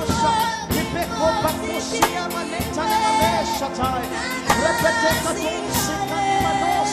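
Gospel worship music: singing over a band with a steady drum beat.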